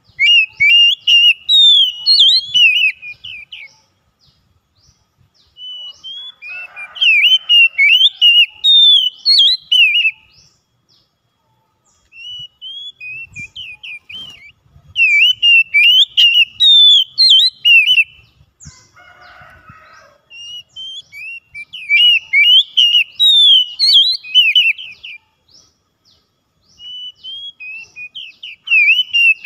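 Oriental magpie-robin singing: loud phrases of quick whistled notes that slide up and down in pitch, five phrases of a few seconds each with short pauses between them.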